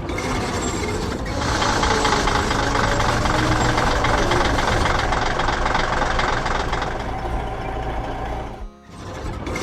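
Heavy construction vehicle engine running with a fast rattle. It gets louder about a second and a half in and drops out briefly near the end.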